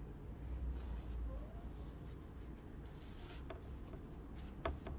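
Quiet handling of an old pocket knife: fingers and nails scratching and rubbing on it, with a few small clicks, the clearest a little before the end.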